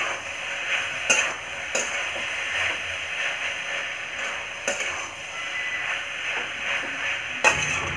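A dry vegetable-and-chickpea mix sizzling as it fries in a metal kadhai while a steel slotted spatula stirs it, scraping through the food and against the pan. A few sharper clicks of the spatula striking the pan stand out.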